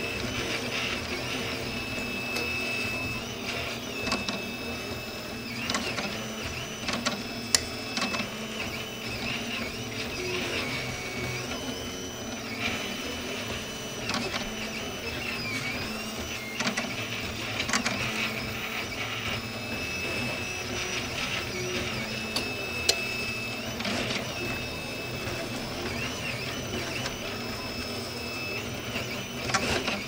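RepRap 3D printer's stepper motors whining as the print head moves, the pitch jumping and gliding with each change of direction and speed. A few sharp clicks come through.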